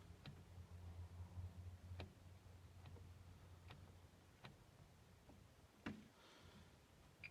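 Siemens WM14E143 washing machine giving a low hum that fades out about four seconds in, with faint single clicks roughly once a second.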